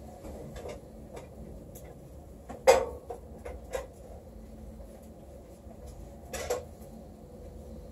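Cookware clattering on a stovetop: a sharp clack of a pan or utensil about two and a half seconds in, a few lighter clicks after it, and a second knock near the end, over a low steady hum.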